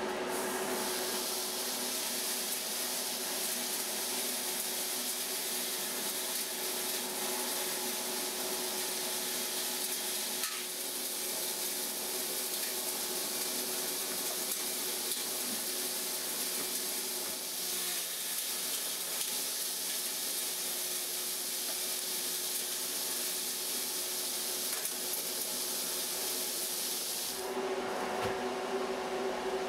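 Delta 50-850 1.5 HP dust collector running with a steady hum while its hose sucks wood shavings out of a bin, a continuous rushing hiss of air and chips through the hose. Near the end the rushing stops as the bin is emptied and the hose comes out, leaving only the motor and impeller hum.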